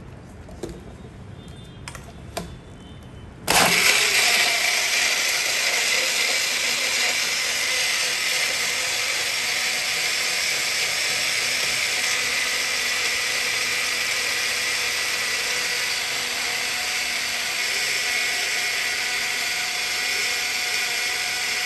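Electric mixer grinder blending mango, coconut water and ice into a shake. A few clicks, then the motor switches on suddenly about three and a half seconds in and runs steadily.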